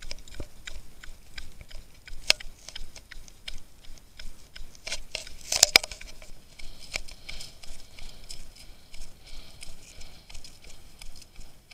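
Running footsteps on a dirt forest trail in barefoot-style running shoes, a regular patter of about three steps a second with crackling from the ground litter. A few louder knocks come a little past the middle, and a steady hiss joins in after about six seconds.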